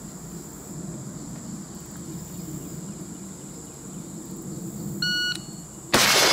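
A shot timer's electronic beep sounds for about half a second near the end, and a moment later a single shot from an AR-style carbine rings out, the loudest sound, echoing as it fades.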